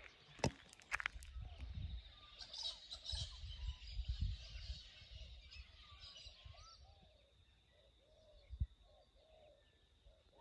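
Faint birdsong outdoors: scattered short warbling calls, over low rumble from wind and handling on the microphone and a thin, steady high tone. A couple of sharp clicks sound in the first second.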